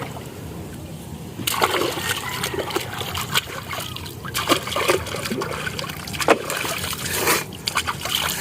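Water splashing and trickling in irregular bursts, with a quiet opening second and a half, then splashes every half second to a second.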